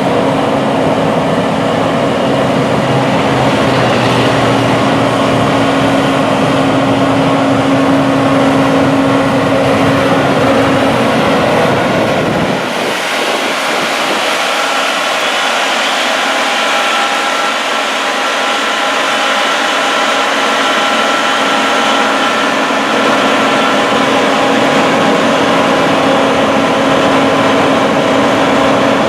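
John Deere S690 combine harvester running steadily with a constant hum. About twelve seconds in the deep part of the sound drops away abruptly and the machine noise continues higher and thinner.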